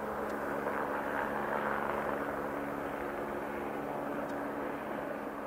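Swiss A340-300 airliner's four CFM56 turbofan engines at takeoff thrust during climb-out: a steady jet roar that peaks about two seconds in, then slowly fades as the aircraft climbs away. A steady low hum runs underneath.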